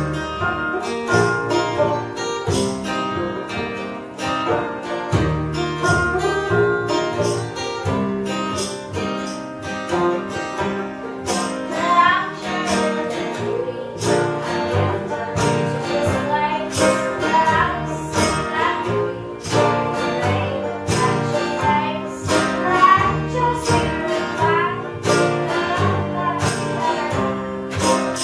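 Acoustic string band playing a bluegrass-style tune: banjo picking over acoustic guitar and upright bass, with a steady plucked rhythm.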